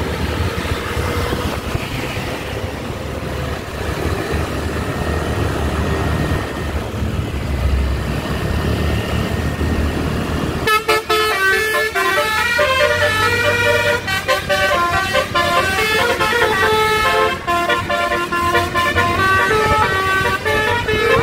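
Road traffic with engines and motorcycles running for about the first ten seconds. Then a tour coach's musical 'telolet' multi-tone horn cuts in suddenly and plays quick runs of stepped notes through to the end.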